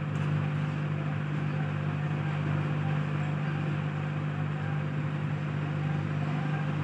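Steady low hum with an even hiss behind it, unchanging throughout, with no distinct clicks or knocks.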